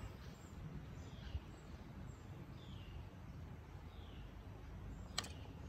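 Quiet outdoor background with a bird's faint, short downward-sliding chirps repeated every second or so. A single sharp metallic click comes about five seconds in, from the valve springs and keepers being worked on the cylinder head.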